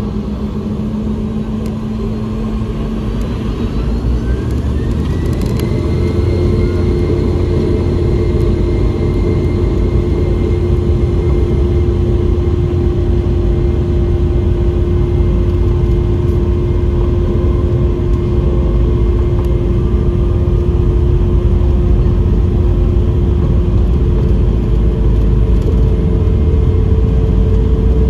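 Boeing 717-200's rear-mounted Rolls-Royce BR715 turbofans heard from the cabin, spooling up for takeoff. A rising whine in the first few seconds levels off into a steady, louder engine whine and low rumble as the airliner rolls at takeoff thrust.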